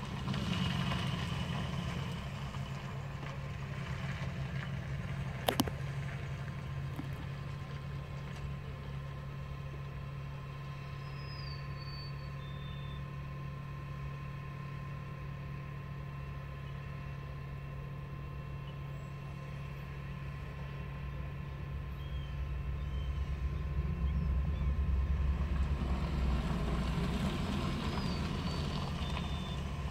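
An engine running steadily, a low drone with a constant hum, growing louder for a few seconds from about 22 seconds in. A single sharp click about five and a half seconds in.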